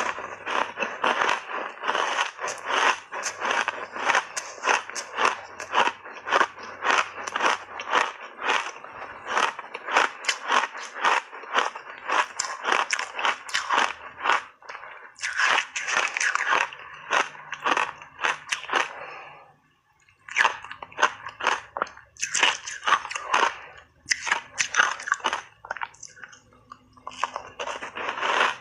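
Ice chunks coated in matcha powder being crunched and chewed up close, a rapid run of sharp crunches about three or four a second. The crunching stops briefly a little past the middle, then resumes.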